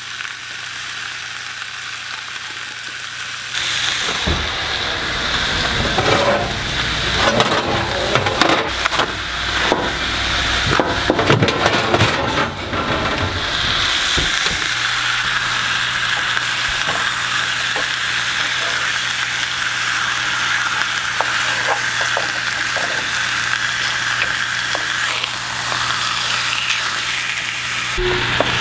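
Pork chops sizzling in a frying pan on a gas stove, a steady hiss that grows louder a few seconds in. Through the middle come clatters and knocks of cookware and the oven door being handled.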